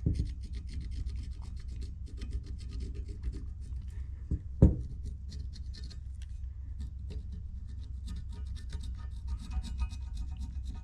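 Rapid, fine scratching of a drawing tool being worked across a steel lawnmower blade as a knife outline is marked out, with one sharp knock about halfway through.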